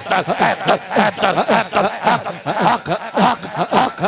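A man chanting rhythmically into a microphone over a PA: short breathy syllables, each falling in pitch, repeated about four times a second.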